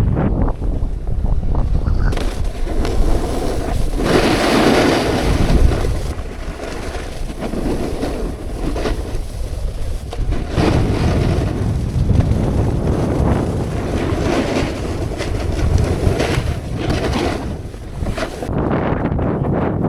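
Wind buffeting the microphone while snowboarding downhill, with the snowboard sliding and scraping over the snow in surges of hiss.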